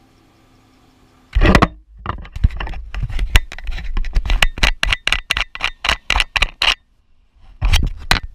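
Handling noise right at the camera's microphone: a rapid run of sharp knocks and scrapes, about three or four a second, with a rumble beneath, starting about a second and a half in. It stops for a moment near the end, then a short burst comes again.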